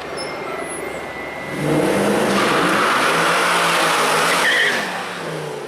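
Mercedes-AMG C63 accelerating hard, its engine note climbing for about three seconds before falling away.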